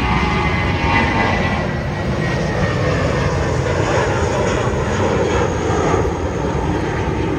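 Jet engines of a departing Airbus A320-family airliner at takeoff-climb thrust: a steady, loud rumble, with a faint whine in the first couple of seconds.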